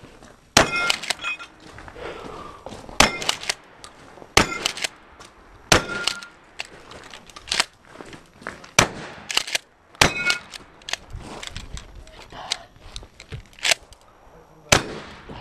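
Shotgun firing at a steady pace, about nine loud shots spaced one to two seconds apart, several followed by a brief ringing tone. Between the shots come smaller clicks, consistent with the pump-action being worked, and crunching footsteps on gravel.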